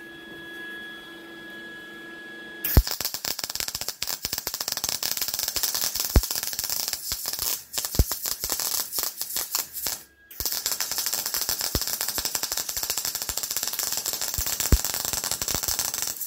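A steady hum, then about three seconds in a small MIG welder's arc strikes and crackles with dense sharp pops, filling a drilled hole with weld. It stops briefly near the middle, then starts again.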